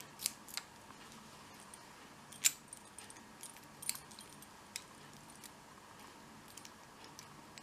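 Keys and a brass padlock handled: a few scattered small metallic clicks and light key jingles, the sharpest about two and a half seconds in, as a key is tried in the lock's keyway while the open shackle holds it in.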